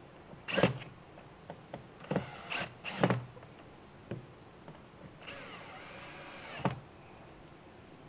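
Cordless drill-driver driving Phillips screws into a metal strap on a wooden transom frame: a few short spurts in the first three seconds, then a longer run of about a second and a half with the motor's pitch rising and falling, ending in a short knock.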